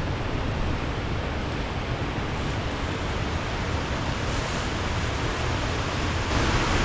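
Steady rushing noise of water coming off a dam, with wind buffeting the microphone; it grows a little louder near the end.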